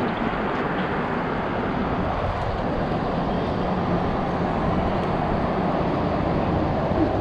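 Steady rush of wind noise with an engine idling underneath, its low hum growing stronger from about two seconds in.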